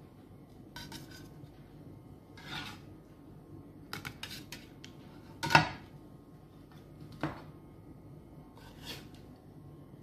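Serving utensil clinking and scraping against a ceramic dinner plate as pieces of steak and a potato are set down: several separate knocks and scrapes, the loudest a sharp clink just past the middle.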